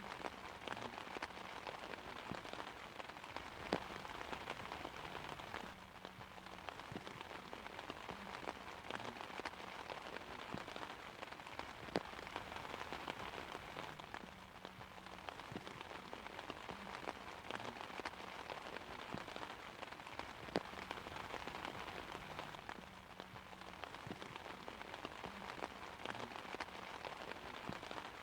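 Steady rain pattering on an umbrella canopy, with a dense patter and scattered louder single drop hits that ease slightly now and then.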